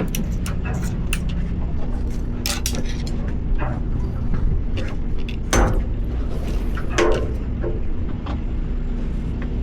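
Steady low hum of a fishing boat's machinery, with scattered sharp clicks and knocks of fishing gear on the deck and rail. The loudest knocks come about two and a half, five and a half and seven seconds in.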